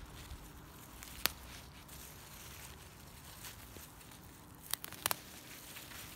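Gloved hand rustling through stinging nettle plants, with sharp snaps of nettle tops being picked off: one about a second in and a quick cluster of three or four near the end.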